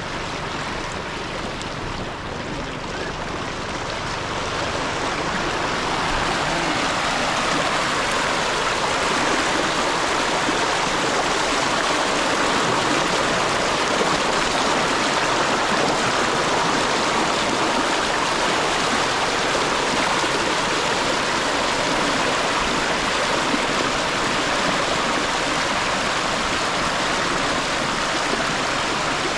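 Fast stream water rushing over rocks, a steady loud rush of white water that grows louder about five seconds in and then holds.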